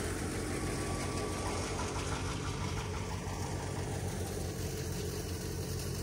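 Wheat thresher running steadily, together with the engine that drives it: a constant low machine hum under a rushing noise.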